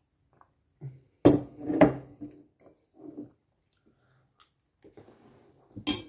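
Crockery and cutlery clinking: a ceramic mug set down on the table and a fork against a ceramic plate. There are two sharp knocks a little over a second in, some quieter clatter, and another sharp clink near the end.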